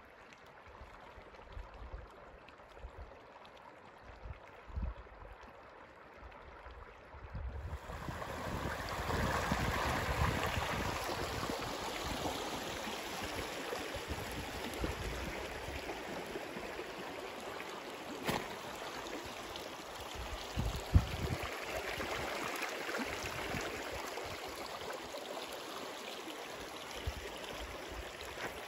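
Shallow river water running over rocks, a steady rushing and babbling that grows louder about a quarter of the way in. A few low bumps come through it, the strongest about two-thirds of the way through.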